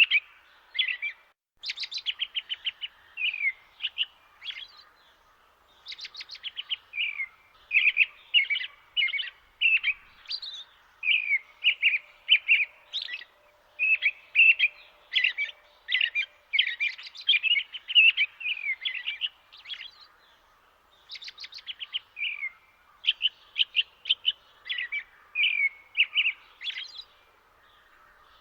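Songbirds chirping and singing in quick, repeated high-pitched phrases, with a few short pauses.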